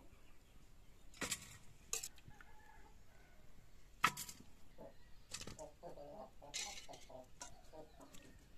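Chickens clucking faintly, with a few sharp knocks and clinks scattered between, the loudest about four seconds in.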